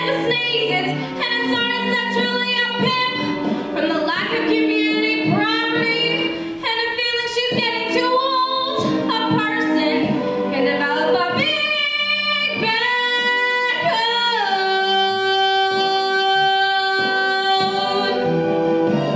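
A young woman singing a comic Broadway show tune solo over instrumental accompaniment, moving through short sung phrases, then holding one long, high note near the end.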